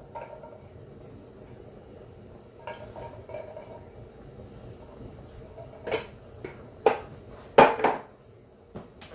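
Metal clinks and knocks from a tin can of coconut milk against a stainless steel skillet as the can is emptied into it. Quiet at first, then a few sharp knocks about a second apart in the second half, the last one the loudest.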